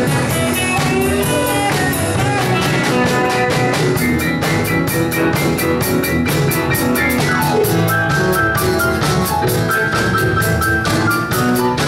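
Live rock and roll band playing: a drum kit keeping a steady beat under guitars, bass and keyboard, all amplified through the PA.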